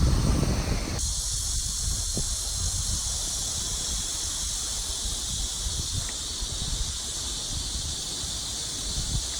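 Insect chorus giving a steady, high-pitched shrill hiss that begins about a second in, with a low wind rumble on the microphone beneath it.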